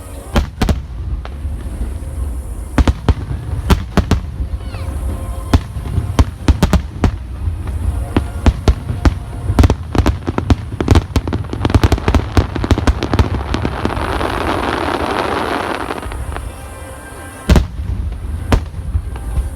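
Aerial fireworks display: a rapid series of sharp bangs from bursting shells over a low rumble, thickening into a quick barrage, then a swelling hiss of crackling stars, and one heavy bang near the end.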